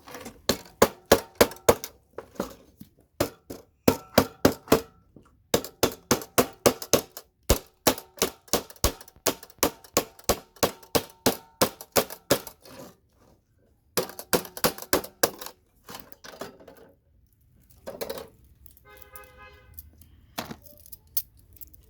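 Hammer tapping a chisel in quick runs of strikes, about four or five a second, with a short metallic ring on each blow, driving under CPU sockets to knock them off motherboards whole for their gold-plated pins. The taps pause briefly twice and grow fainter near the end, where a single ringing metal clink stands out.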